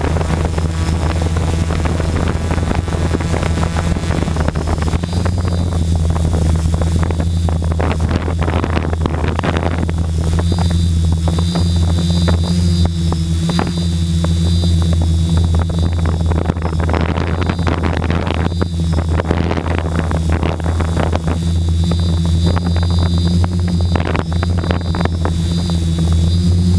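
A 550mm quadcopter's brushless motors and propellers droning steadily as it climbs, heard through the GoPro mounted on it, with a high motor whine that wavers in pitch. Gusts of wind noise on the microphone break in now and then.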